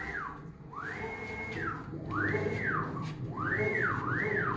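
CNC milling router's axis stepper motors whining as the machine makes a run of quick moves. The pitch climbs, holds and falls about five times, once for each move as it speeds up and slows down, over a steady low hum.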